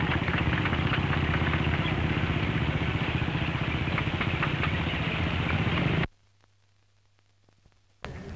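Engines and clattering tracks of a column of small tracked military carriers driving past: a steady engine rumble with rapid track clatter. It cuts off abruptly about six seconds in, leaving near silence with a faint low hum.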